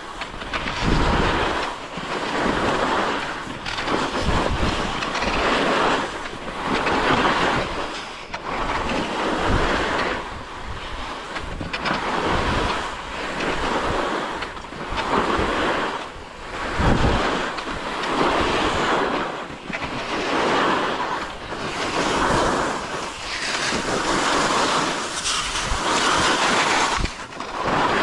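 Skis hissing and scraping over snow in a steady run of turns, the noise swelling about every second and a half as each turn is made.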